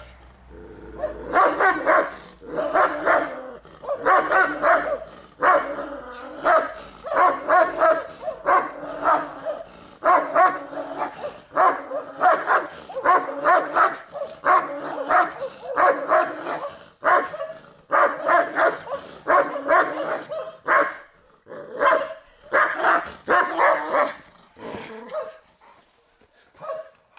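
Central Asian Shepherd Dog (Turkmen Alabai) barking over and over at an approaching stranger, a territorial guarding bark, in quick runs with short pauses that thin out near the end.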